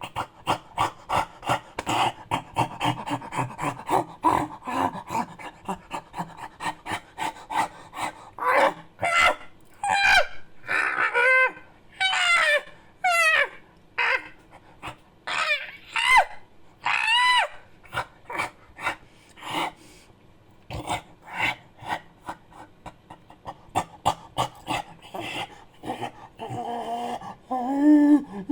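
Monkey-like creature calls made by voice: fast rhythmic panting at first, then a run of high calls that slide up and down in pitch from about eight seconds in, and short panting grunts again toward the end.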